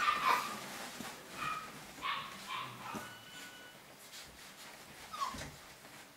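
Yorkiepoo puppies giving short high yips and whimpers as they play, loudest in a burst at the start, with a short falling whine about five seconds in. Faint rustling of shredded paper bedding runs underneath.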